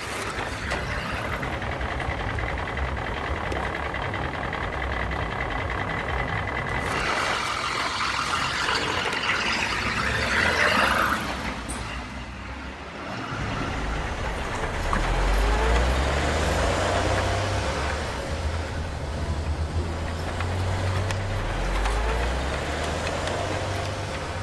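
Truck driving sounds for toy trucks passing by: a deep engine hum that rises and falls in pitch through the second half.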